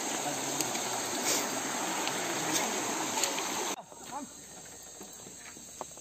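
Shallow river rushing over rocks, a steady hiss, which cuts off abruptly a little under four seconds in, leaving a steady high-pitched insect chorus.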